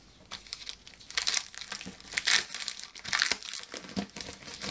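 Sheets of double-sided printed scrapbook paper rustling and sliding against each other as they are handled and leafed through, in a few irregular bursts, the loudest about halfway in.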